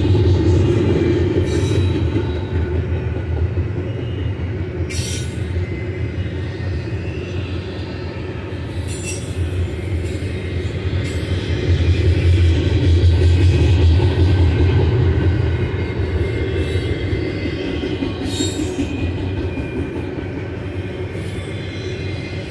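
BNSF double-stack container train rolling past: a steady low rumble of the loaded well cars' wheels on the rail, with a faint thin wheel squeal. A few brief clanks come along the way.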